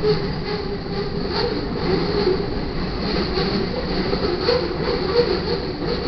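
Freight train boxcars rolling past: a steady rumble of steel wheels on rail with irregular clicks and clanks.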